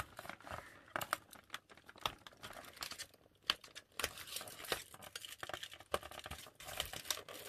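Hands opening a cardboard advent calendar door and unwrapping the small item inside: irregular light clicks, taps and rustles of cardboard and wrapping.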